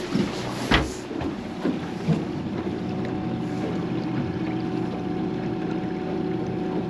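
Honda outboard motors running steadily at low trolling speed, an even hum. There are a few knocks in the first two seconds, the loudest a sharp thump under a second in.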